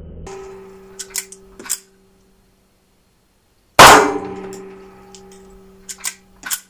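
ISSC M22 .22 LR pistol: a few sharp metallic clicks, then one loud shot about four seconds in that rings on for a second or two in the small range, followed near the end by more quick clicks as the pistol is worked by hand.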